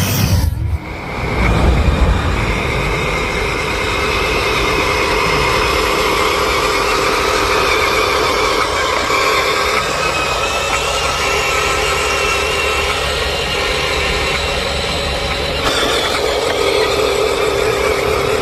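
Radio-controlled construction model running: a steady mechanical whine with held tones that shift slightly, changing character about sixteen seconds in.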